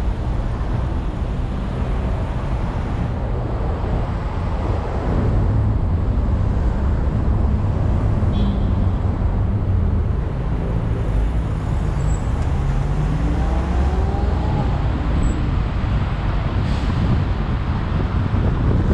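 Road traffic: engines idling and running in a queue of cars, then vehicles pulling away with rising engine tones in the second half.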